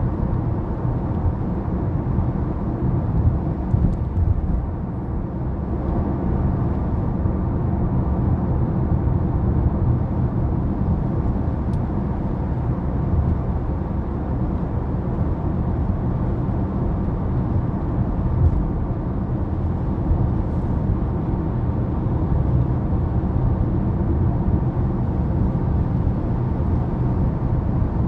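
Steady low rumble of a vehicle driving, with no breaks or changes.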